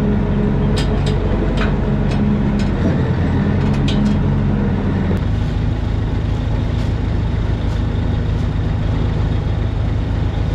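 Diesel tractor engines running close by, with metal rattles and knocks over the first few seconds as a tractor pulling a fertilizer spreader comes up and stops. About five seconds in the engine note changes and settles into a steady idle.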